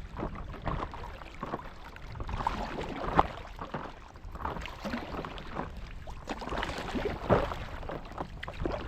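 Paddles dipping and splashing in lake water around paddleboards, irregular sloshing with two louder splashes, about three and seven seconds in.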